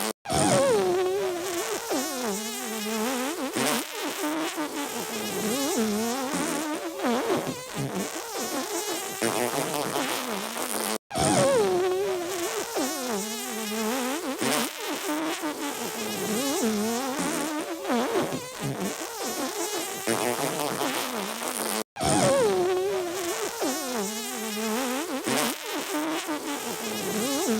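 Buzzy, wobbling fart-like noises from a short clip played on a loop. It restarts about every eleven seconds, with a brief cut to silence at each restart.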